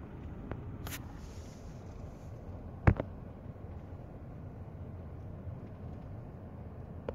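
Steady low road and engine noise inside a slowly moving car. A brief click comes about a second in, and a sharp knock, the loudest sound, about three seconds in.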